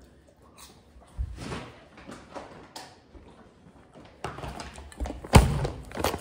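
Knocks and rustling of things being handled on a kitchen counter, with a bag of sugar rustling and a loud thump about five seconds in.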